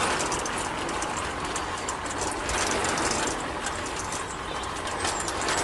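Steady mechanical running noise with a fast rattle of clicks, as of a small machine or motor at work.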